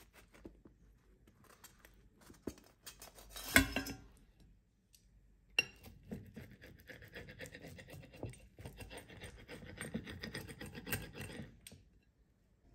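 A pizza slides from an aluminium pan onto a ceramic plate with a scrape and a clunk about three and a half seconds in. Then a pizza cutter wheel rolls through the crust, scraping against the plate, for about six seconds.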